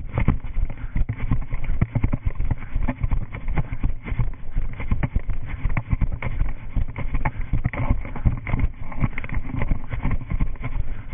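Running footsteps, rapid irregular thuds and knocks picked up through a GoPro worn by the runner as she crosses grass and a dirt path.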